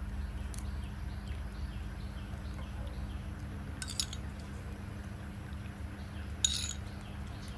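Metal spoon clinking against a ceramic bowl twice while scooping yogurt, the second clink louder, over a steady low hum.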